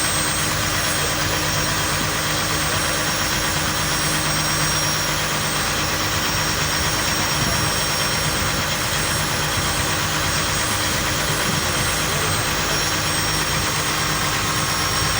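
Boat engine running steadily, a constant drone with no change in speed.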